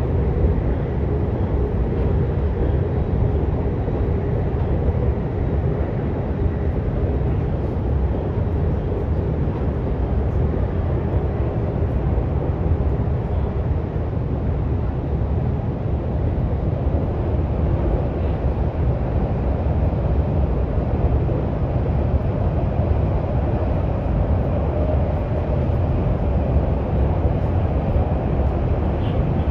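Daxing Airport Express train running between stations, heard inside the passenger car: a steady, loud rumble of wheels and running gear, with a faint steady hum in the middle range.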